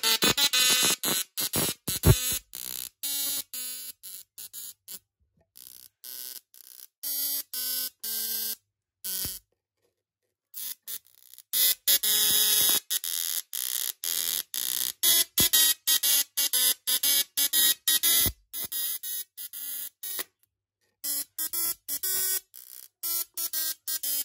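Tesla coil's spark discharge buzzing harshly in quick runs of short pulsed notes that change pitch like a tune, broken by short silent pauses.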